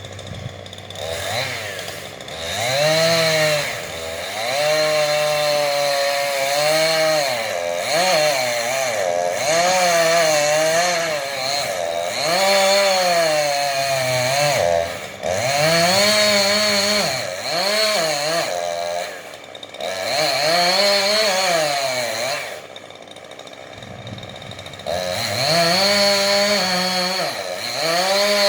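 Chainsaw revving up and dropping back again and again as it cuts, its pitch rising and falling every second or two. A little past the middle it settles at low revs for a couple of seconds, then revs up again near the end.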